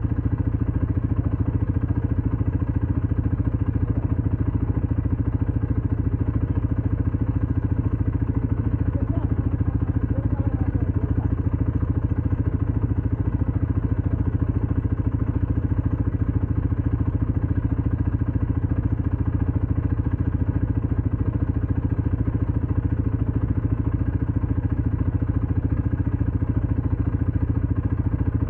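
ATV engine running steadily at an even speed, with no revving or change in pitch.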